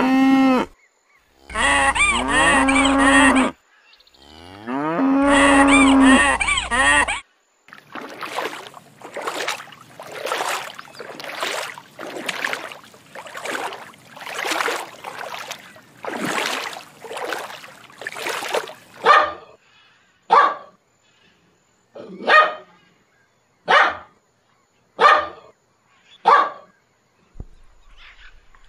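Cows mooing: two long, low moos in the first seven seconds after the end of another. Then comes a steady rhythm of soft swishing swells about every second and a half, and after that six short, sharp calls at an even pace.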